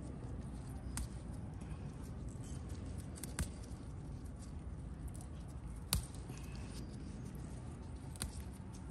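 Green chillies being picked off the plant: four short sharp snaps, about every two and a half seconds, as stems are broken or cut, over a steady low rumble.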